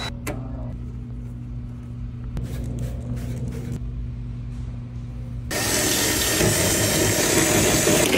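Cordless drill work on a car's trunk lid: a steady low motor whir. About five and a half seconds in it gives way to a much louder, harsh whir as a bit drills through the sheet-metal lid for the wing mounts.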